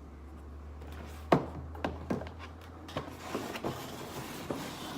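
A string of short knocks and clatters from objects being handled, the loudest about a second and a half in, over a low steady hum.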